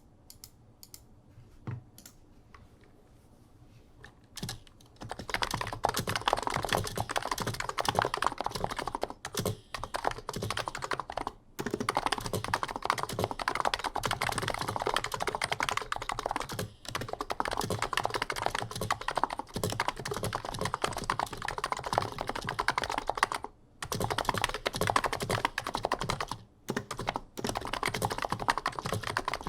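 Typing on a keyboard with Niz 55 g electrocapacitive (Topre-style) switches, which have a thocky sound. It starts with a few single key presses and then runs into steady fast typing about five seconds in, with a few short pauses. The stabilizers rattle and sound springy because their factory lube has worn off.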